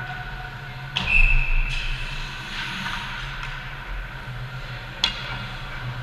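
A sharp knock about a second in, followed by a short high ringing tone, and another sharp knock near the end, over the steady hum of an ice hockey rink.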